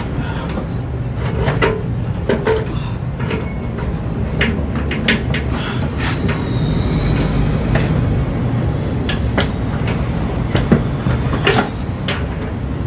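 Irregular metallic clunks, knocks and rattles of a Kia Avila's rack-and-pinion steering rack being worked loose and pulled out by hand from under the car, over a steady low hum.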